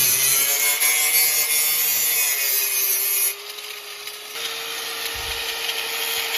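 Grinder grinding a steel chain down to clean, bare metal to prepare it for welding, the motor whining steadily under the grinding noise. The grinding gets lighter a little over three seconds in, and the motor tone then holds steady.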